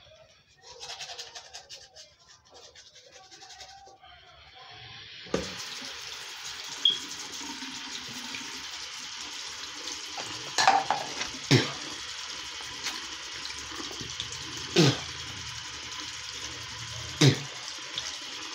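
Toothbrush bristles scrubbing against teeth for the first few seconds. About five seconds in, a tap starts running steadily, with several sharp knocks over the flow.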